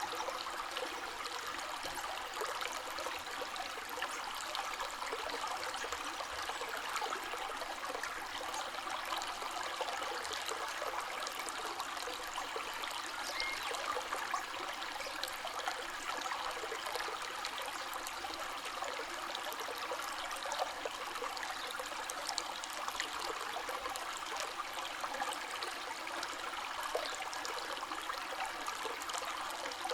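Running river water flowing steadily: an even, continuous rush with fine splashy flickers, mostly bright and with little deep rumble.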